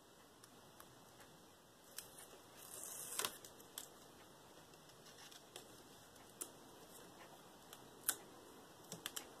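Quiet handling of paper and card with double-sided tape: a short papery rustle about two and a half seconds in that ends in a click, then scattered light ticks and taps as pieces are pressed into place.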